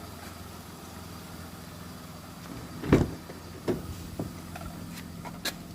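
A vehicle engine idling steadily, with one thump about three seconds in and a few lighter knocks after it.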